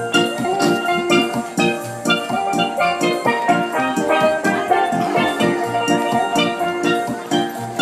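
Lively music with a steady beat and bright, quickly struck melody notes.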